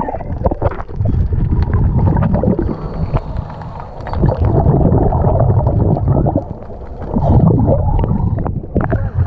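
Seawater churning and gurgling around a camera held just below the surface, a low rumble full of small bubble pops and clicks that eases briefly twice.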